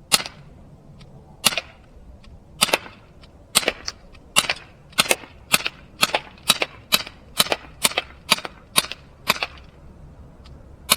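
Umarex Glock 19 CO2-powered BB pistol firing about fifteen shots, each a sharp pop, many with a quick second click just after. The shots come more than a second apart at first, then speed up to about two a second before stopping near the end.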